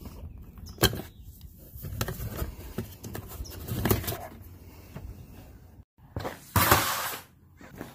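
Hands handling and unclipping hard plastic fittings in a Polaris RZR's cab: a sharp click about a second in and scattered knocks. A short scraping rustle follows near the end.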